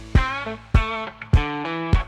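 Instrumental music: guitar chords struck about every half second or so, with a bass line underneath.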